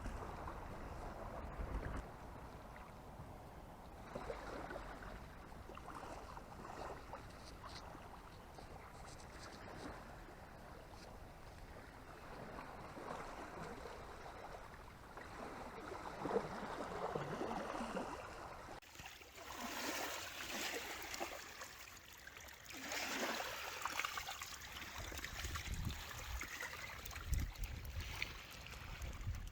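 Moving water, a steady wash of noise that turns louder and brighter about two-thirds of the way through.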